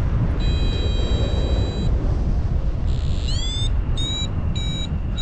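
Paragliding variometer beeping over steady wind noise on the microphone: a long steady tone, then a chirp rising in pitch and a run of short beeps about every half second, the pattern a vario sounds in rising air.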